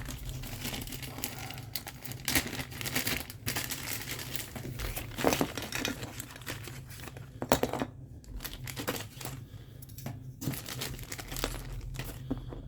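Hands-on parts handling: irregular crinkling and rustling, like packaging being handled, with scattered sharp clicks and knocks of small parts, over a low steady hum.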